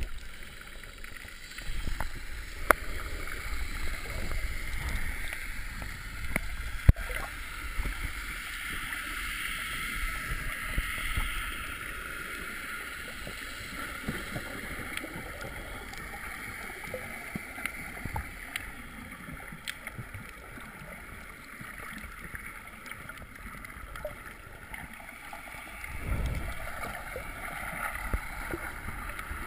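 Muffled sloshing and rushing of seawater heard by a camera held just under the surface, with heavier low rumbles in the first ten seconds and again near the end, and a few sharp clicks.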